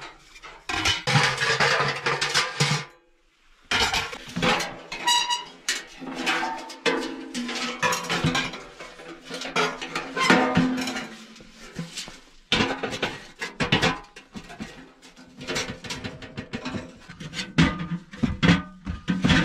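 A sheet-metal camp stove and its chimney pipe being knocked together and handled: repeated metal knocks and clanks, some of them ringing briefly, with a short pause about three seconds in.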